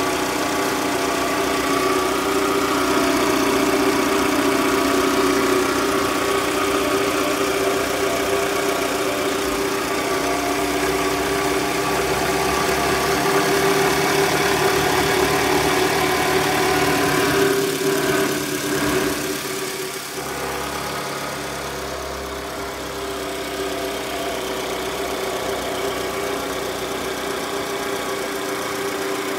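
Toyota Estima's engine idling steadily, heard close up in the open engine bay. It drops a little in level about two-thirds of the way through.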